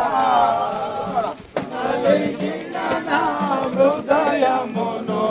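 A group of people singing a chant-like devotional song together, over a steady low beat.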